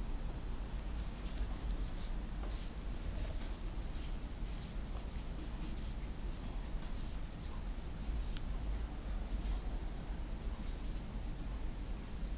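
Crochet hook working yarn: soft, irregular scratching and rubbing as the hook catches and draws loops through the stitches, over a steady low hum.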